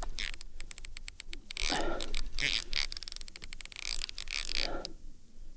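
Baitcasting reel clicking in fast, uneven ticks under the pull of a heavy hooked fish, with two short rushing noises about two seconds in and again near the end.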